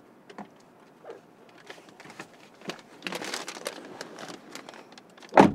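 A paper bag rustling and crinkling, with small knocks and clothing movement, as someone gets into a car seat; a car door shuts with one loud thump near the end.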